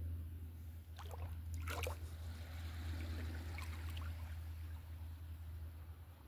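Small waves lapping gently at a shoreline as the tide comes in, with a couple of brief splashes about one and two seconds in, over a steady low rumble.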